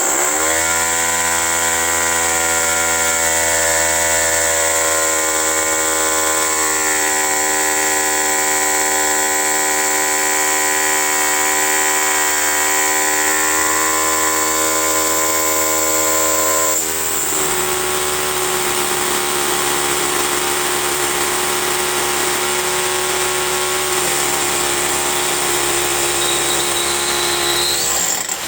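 Electric drill running under load as it bores a hole through a concrete floor slab for an anchor bolt: a steady motor whine that starts suddenly, drops to a lower pitch a little past halfway, and stops at the end.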